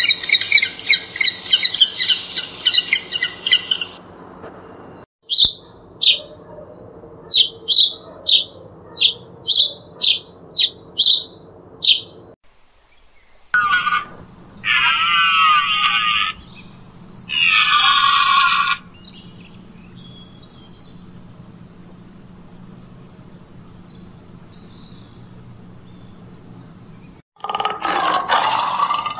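A string of different animal calls. It opens with rapid, overlapping trumpeting calls from a king penguin colony for about four seconds, followed by a run of short high chirps about once a second. Two long wavering calls follow, and near the end a tiger roars.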